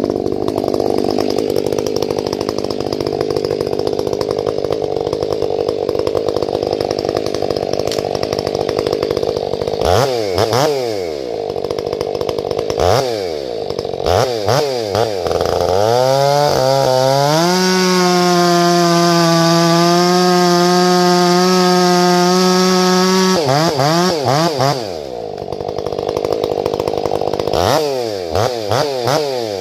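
Two-stroke chainsaw fitted with an eight-pin rim sprocket and a freshly ground full-house chain, cutting firewood. After a steady stretch it is revved up and down several times, then held at full throttle for about six seconds before dropping back, with a few short revs near the end.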